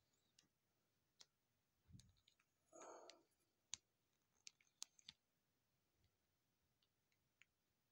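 Near silence with a few faint, scattered clicks and a soft thump, as of light handling of small plastic figures and stands.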